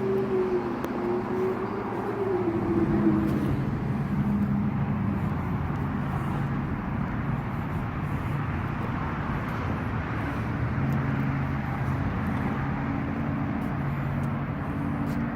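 An engine running under a steady hiss, its pitch wavering in the first few seconds and again near the end.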